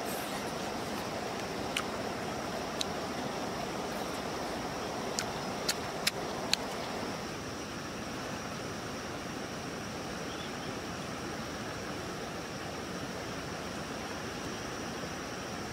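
Steady rush of a flowing river, with a handful of short, sharp clicks in the first half.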